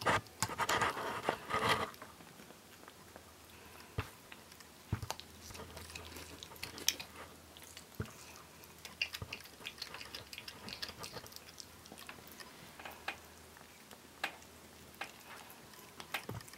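Raccoon chewing and gnawing on a chicken leg: wet bites and sharp cracks of bone, densest in the first two seconds and then scattered irregularly.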